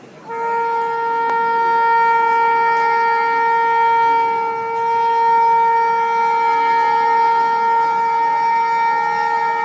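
Indian Railways goods-train locomotive's horn sounding one long, unbroken blast of several steady tones together. It starts a moment in and is held to the end.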